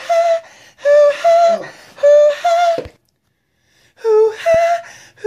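A person's voice singing a repeated two-note tune, held notes alternating between a lower and a higher pitch. The sound cuts out completely for about a second in the middle, then the same tune resumes.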